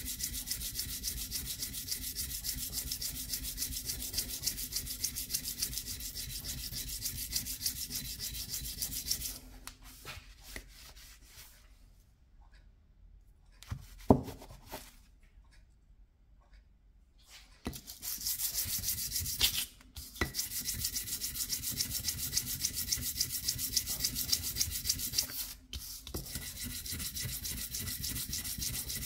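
A steel Dnepr 650 tappet is rubbed in quick back-and-forth strokes on abrasive paper laid on a flat steel plate, a gritty scraping as its worn face is lapped flat. About a third of the way in the rubbing stops for several seconds, broken by a single sharp knock, then resumes and runs on more softly near the end.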